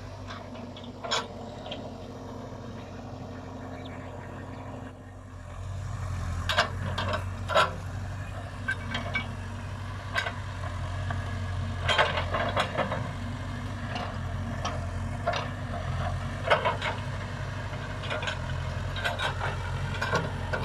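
Case Super K backhoe's diesel engine running steadily, getting louder about five seconds in, with scattered sharp clanks and knocks throughout.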